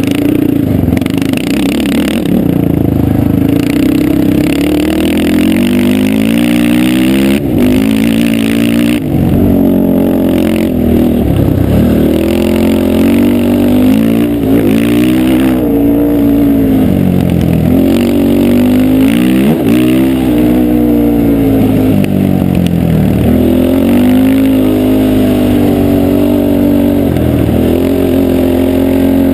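450cc sport quad's single-cylinder four-stroke engine idling and being revved over and over, its pitch climbing and falling back every couple of seconds, while the quads sit at the start line of a drag race.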